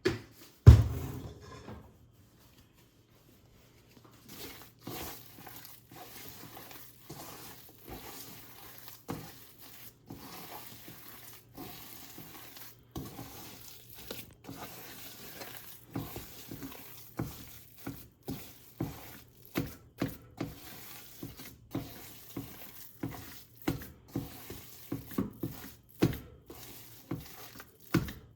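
A spoon stirring and scraping a cooking mixture in a pot, in repeated strokes that start about four seconds in and come faster toward the end. A single knock comes about a second in.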